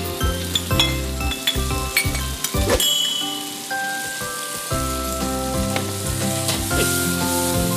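Chicken wings and sauce sizzling in a non-stick frying pan while water-starch slurry is poured in and stirred with a silicone spatula, with scattered light clicks and scrapes of the spatula. A tune plays underneath.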